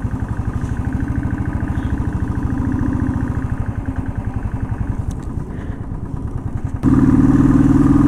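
Small vehicle engine running steadily under way, with a rapid throbbing beat; it gets louder about seven seconds in.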